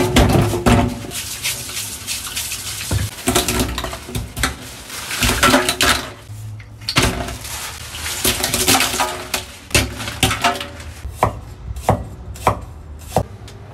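Oyster and mussel shells clattering as they are tipped out of a plastic bag into a stainless steel sink, hard shell knocking on steel and on shell. Near the end, a cleaver chops ginger slices on a wooden cutting board in a quick run of sharp knocks.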